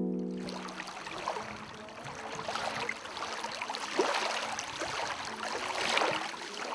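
The last held keyboard chord fades out. Small waves then wash and splash against the shore, rising and falling, with a swell about four seconds in and another near the end.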